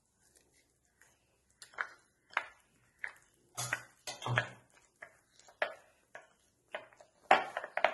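Short clinks and scrapes against a glass bowl as ground masala paste is scooped out of it, about one every half second, loudest in the middle and near the end.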